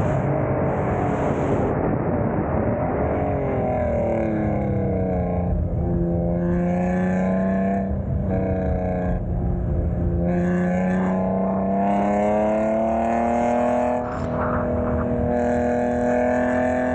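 Honda NSX V6 engine running hard on a track. Its note is rough for the first few seconds, then drops in pitch and climbs slowly and steadily under load. There is a brief dip near the end, then it carries on at a higher pitch.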